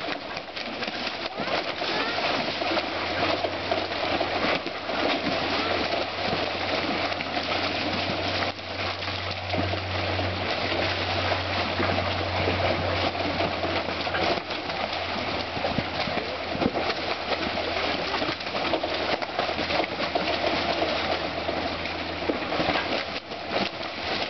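Fast river water rushing and churning through a concrete weir crowded with spawning salmon, with small splashes and slaps as fish thrash against the tarps. A low steady hum runs underneath for most of the time.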